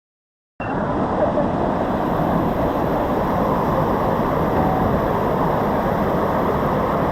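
Waterfall cascades, fed by an overflowing reservoir, rushing over rock in a steady heavy noise that cuts in suddenly about half a second in.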